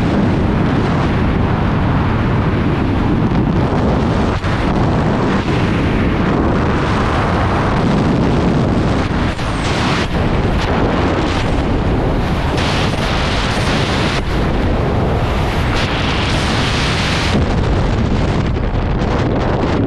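Freefall wind rushing over the camera's microphone during a skydive: a loud, steady buffeting noise that thins slightly in its hiss near the end.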